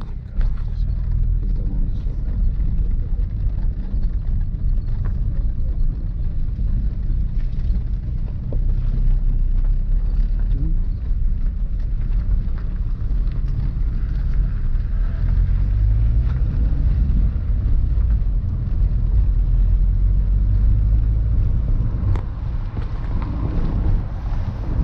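Car driving along, heard from inside the cabin: a steady low rumble of engine and tyres on the road.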